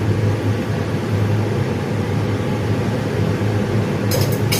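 A steady, loud low mechanical hum with a rushing noise over it, and a few sharp clicks about four seconds in.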